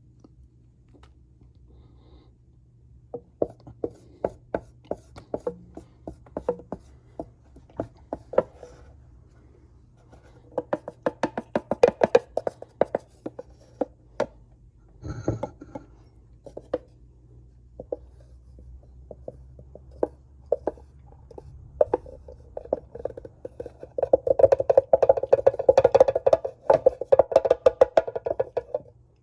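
Cornstarch being mixed and pressed by hand: irregular crunchy clicks and taps, coming thick about eleven seconds in and again near the end, over a faint low hum.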